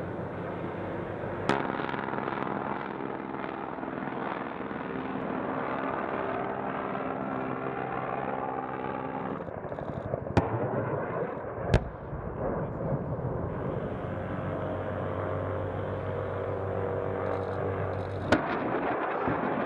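Little Bird light helicopter running steadily, its turbine and rotor making a pitched drone. Four sharp bangs from weapons fire or impacts break through it: one about a second and a half in, two close together around the middle, and one near the end.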